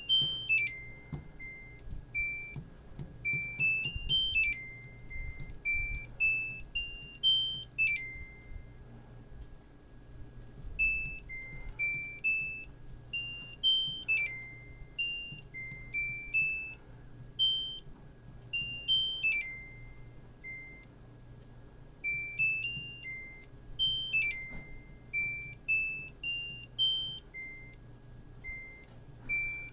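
Washing machine's electronic beeper playing a short melody of clean high beeps, the tune repeating over and over with brief pauses between phrases, over a steady low hum.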